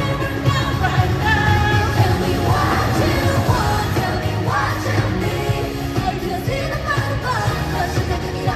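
Live K-pop concert music over an arena PA, heard from the stands: a girl group singing over a pop track with a live band and a strong, steady bass beat.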